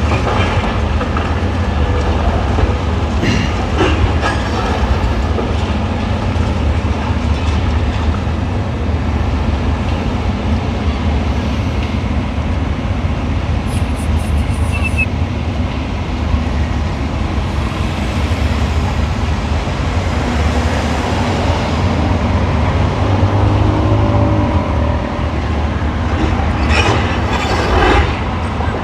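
Heavy demolition machinery with a steady low diesel rumble, with a few clanks and knocks, the loudest near the end.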